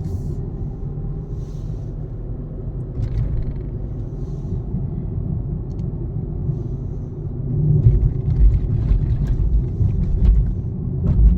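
Tata Altroz driving in fourth gear, heard inside the cabin: a steady low rumble of engine and road noise that swells louder in the second half, with a few faint clicks over it.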